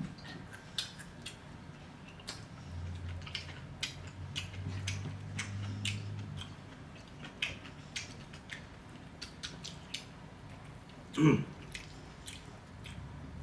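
Close-up mukbang eating sounds of pork kare-kare: wet chewing with many small mouth clicks and lip smacks. About eleven seconds in comes one short, louder voiced sound, like an 'mm' or a swallow.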